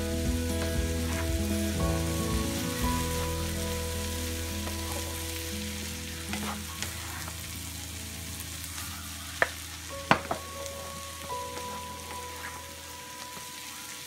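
Zucchini, onion and egg stir fry sizzling in oil in a frying pan as a spatula turns it. The sizzle fades gradually as the moisture cooks off. A few sharp knocks of the spatula against the pan come in quick succession around the middle.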